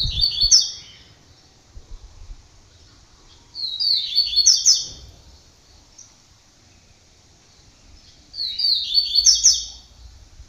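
A songbird singing three short, quick high-pitched song phrases about four seconds apart, the first at the very start, the others about 3.5 and 8.5 seconds in.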